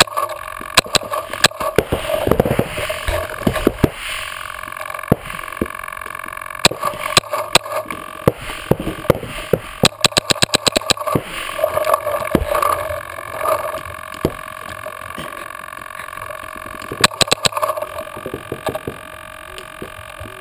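Paintball marker shots: sharp pops, single and in fast strings of several, heard close up, over a steady hum.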